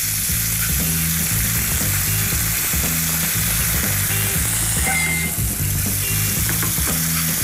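Minced beef frying with a steady sizzle in oil in a hot frying pan, while a wire egg whisk stirs and breaks it up.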